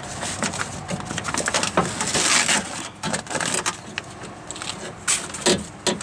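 Handling noise from the door handle rod linkage being fitted inside a car door: scattered clicks, knocks and rattles of metal rods and plastic parts, with a short scraping stretch about two seconds in.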